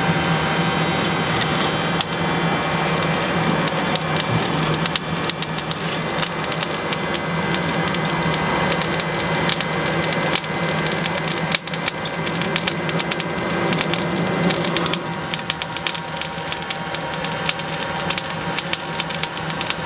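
Electric hot-air charcoal starter blowing into lump charcoal: a steady blower hiss with a low hum, and the coals crackling and popping as they catch and throw sparks, the crackling growing denser in the second half.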